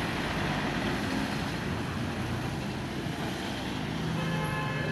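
Road traffic at a roundabout: a town bus's engine running as it passes close by and pulls away, over a steady background of traffic. A horn begins sounding faintly near the end.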